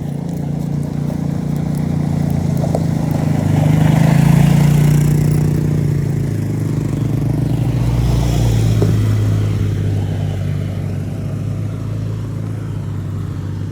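Motor vehicle engine passing close by, growing louder to a peak about four seconds in and again around eight seconds, its pitch dropping in between, then easing off slightly.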